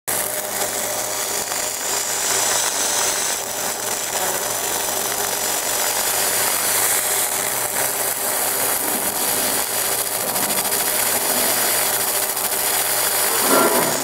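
Fiber laser engraving machine deep-engraving a zinc-alloy (Mazak) buckle: a steady, dense crackling hiss as the pulsed beam ablates the metal, with faint steady high tones under it.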